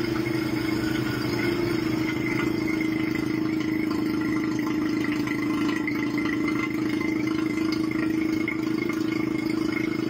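Oil-sealed vacuum pump running steadily with a fast, even pulsing hum as it pulls down a vacuum distillation setup, its oil-fill cap left off.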